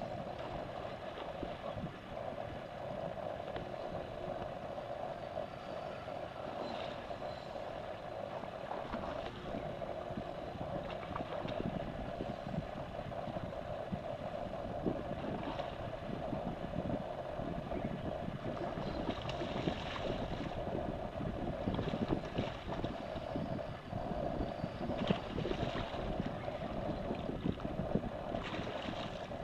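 Steady wind and water noise around an open boat, with a constant hum running under it. Several short hissing bursts come in the second half.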